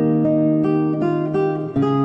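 Solo classical guitar played fingerstyle: a melody of plucked notes rings over a held bass note, with a new bass note coming in near the end.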